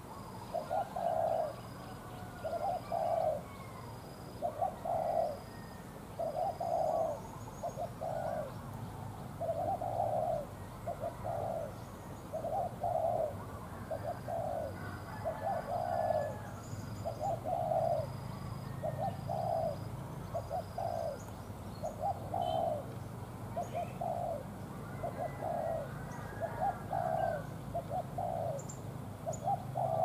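Spotted dove cooing over and over, about one coo a second, in its steady rhythmic song.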